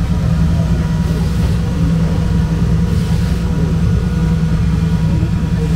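Drift car's engine idling steadily, a constant low hum with no revving.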